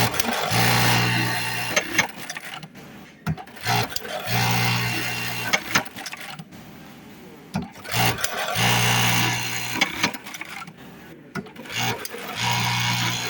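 Industrial buttonhole sewing machine running in four short stitching cycles, each about one and a half to two seconds long and about four seconds apart. Clicks and knocks come between the cycles.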